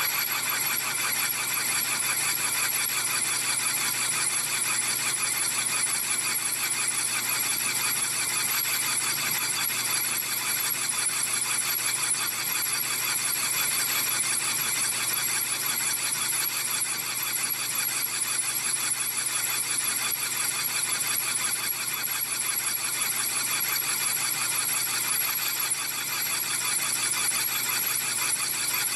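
Lathe tool cutting the face of a large spinning steel clutch hub, giving a steady high-pitched squeal made of several tones at once.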